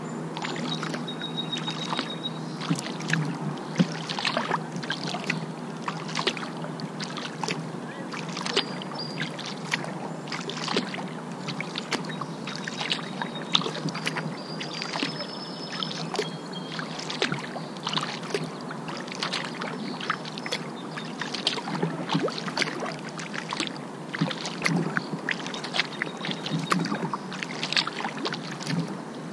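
Kayak being paddled: irregular splashes and drips of the paddle blades dipping into the water. A low steady hum fades out in the first couple of seconds.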